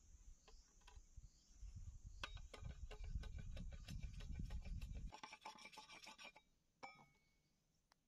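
Machete blade scraping and shaving a green bamboo tube in quick repeated strokes, rasping, stopping a little past six seconds in; a single sharp knock follows near the end.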